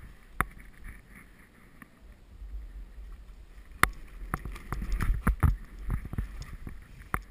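Skis sliding and swishing through powder snow, with scattered clicks and knocks; the sharpest knock comes about four seconds in, and a low rumble builds through the second half.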